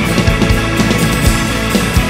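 Instrumental passage of an alternative rock song: electric guitars and a drum kit playing a steady beat.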